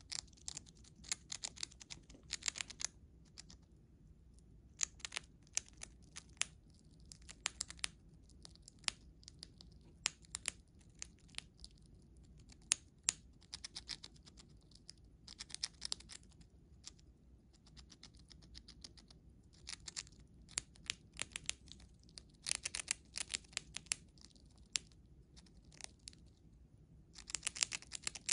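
Siberian chipmunk gnawing and crunching a dried sweet potato chip: rapid crisp clicks in bursts of a few seconds, broken by short pauses.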